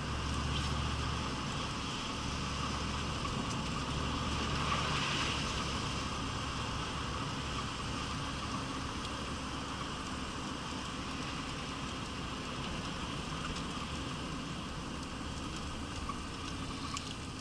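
Steady in-car driving noise from a 1983 Pontiac Trans Am with a 305 small-block V8 moving slowly on a wet, slushy road: a low engine hum under a hiss of tyres and spray. The hum eases off about five seconds in.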